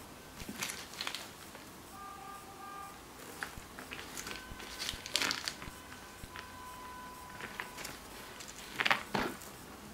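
Plastic protective wrapping crinkling and rustling in short bursts as a leather chain handbag is turned over in the hands, the loudest rustle near the end. Faint steady electronic tones sound in the background, a two-note tone about two seconds in and a thinner tone through the middle.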